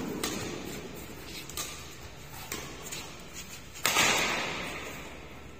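Badminton rackets striking a shuttlecock during a fast rally in an echoing sports hall. There is a jump smash just after the start, then several lighter hits, and a loud hit about four seconds in that rings on in the hall.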